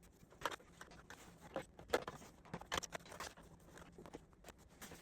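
Irregular light clicks and knocks, about a dozen, the loudest about two seconds in, from plastic Shark vacuum parts and the lower hose being handled and fitted.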